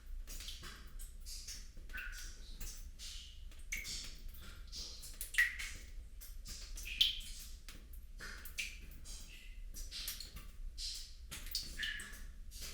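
Water trickling and gurgling, with irregular bright plinks of drops and bubbles several times a second.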